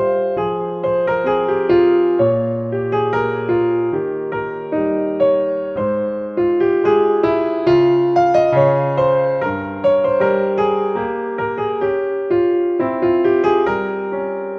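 Background keyboard music, a piano-like allemande played as a steady flow of notes with chords under a moving melody.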